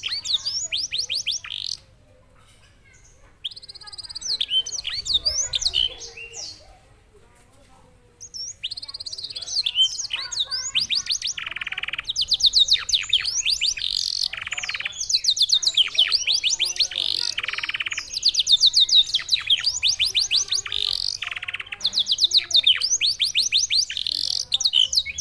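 Canary singing in rapid, high trilled phrases. After two short pauses in the first eight seconds the song runs on almost without a break, with a few lower buzzing rolls among the trills.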